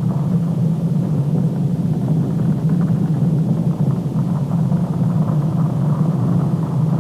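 A steady low rumbling drone that stays even throughout, with no breaks or separate events.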